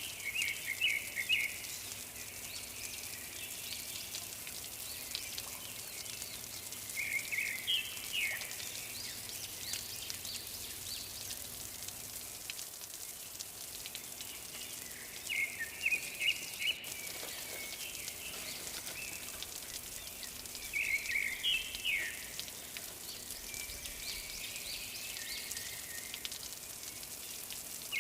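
A bird singing short, chirpy phrases of a second or so, repeated every six to eight seconds, over a steady hiss like light rain.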